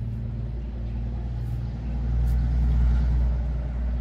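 A steady low rumble with a faint hum, swelling a little for about a second past the middle.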